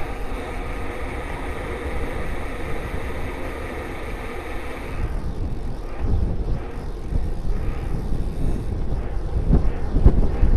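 Wind rushing over a bicycle-mounted camera's microphone, with steady road and tyre noise as the bike rolls along. The wind rumble gets heavier and gustier about halfway through.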